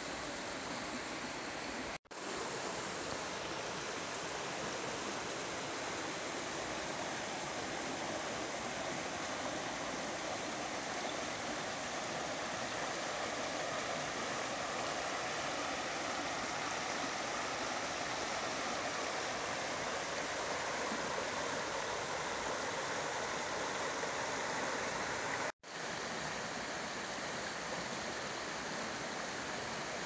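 Shallow rocky river rushing steadily over stones and small cascades. The sound cuts out abruptly twice for an instant, about two seconds in and again near the end.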